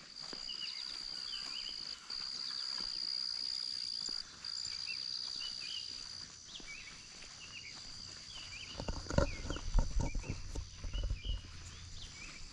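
An insect buzzing with a steady high note that breaks off briefly twice, amid many short bird chirps. From about two-thirds of the way in, a run of loud footsteps thumps close to the microphone.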